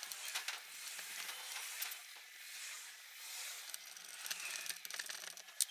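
Faint small clicks and scrapes of a screwdriver and metal parts on an alternator housing as its screws are driven in during reassembly, with one sharper click near the end.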